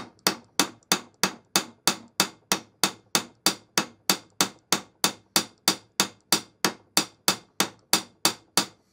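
A small engineer's hammer peening over the protruding end of a 1/8-inch rivet into a countersink, with the work resting on a rivet snap. Steady, even metal-on-metal strikes at about three a second, each ringing briefly.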